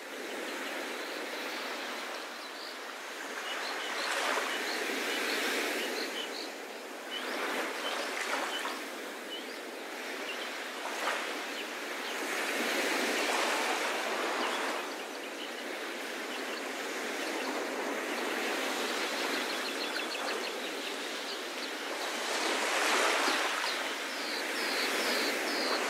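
Small sea waves washing onto a sandy beach, the wash swelling and fading every few seconds.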